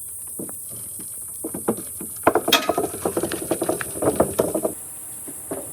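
A rapid, irregular clatter of knocks and bangs, loudest from about two seconds in until nearly five seconds in.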